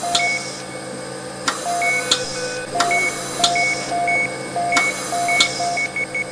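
A string of short electronic beeps at two pitches, a lower and a higher one, at uneven spacing, with a sharp click every second or so over a faint steady hum.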